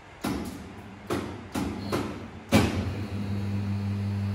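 Industrial stainless-steel boiling pan's basket mechanism: about six sharp knocks over the first two and a half seconds, the last the loudest. Then a steady electric motor hum begins as the perforated basket starts to tilt.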